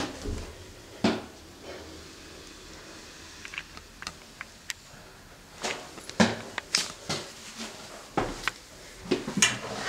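Footsteps on a wooden spiral staircase: irregular thuds and knocks on the treads, thickest in the second half, with a few light clicks about halfway through.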